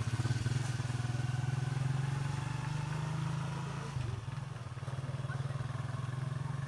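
A small engine running steadily with a fast pulsing beat, dipping briefly about four seconds in before carrying on.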